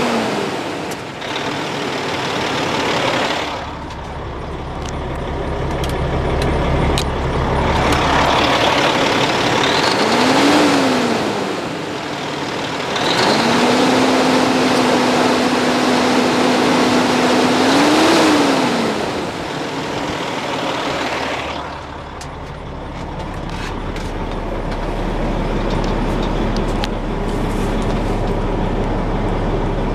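2007 Freightliner Columbia's Caterpillar diesel engine running, blipped up and back down twice, then held at a higher speed for about five seconds before dropping back to idle. Later it idles steadily, heard more dully from inside the sleeper cab.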